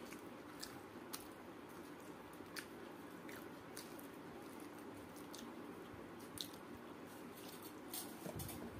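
Fingers squishing and mixing cooked rice on a steel plate, with the wet sounds of eating by hand and scattered faint clicks.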